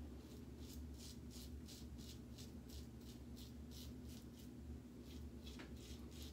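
Short, faint scraping strokes of a vintage Gillette adjustable safety razor cutting lathered beard stubble, about two to three strokes a second, over a steady low hum.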